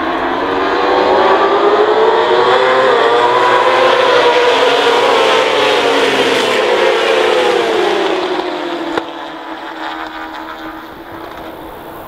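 A pack of race motorcycles at high revs passing through a corner, their engine notes rising in pitch and then falling away as they go past. The sound fades from about two-thirds of the way in, with a single sharp click shortly after.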